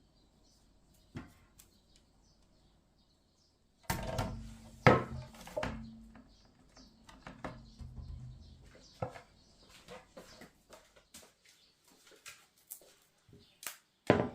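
Faint bird chirps, then from about four seconds in a run of sharp knocks and clatter like kitchenware being handled, over a low steady hum. The knocks thin out to scattered clicks near the end.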